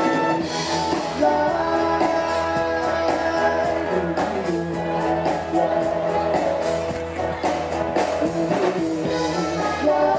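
Naval band playing live, a full ensemble piece with sustained notes over a steady beat.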